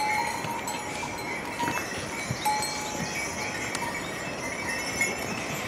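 Bells on a train of pack mules ringing as they climb a stony trail, with a few hoof knocks on rock. The ringing comes in several overlapping held tones.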